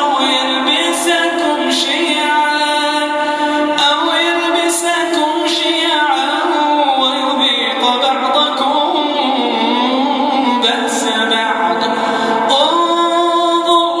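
A man reciting the Quran in the melodic, unaccompanied tajweed style, singing long held notes that slide and waver.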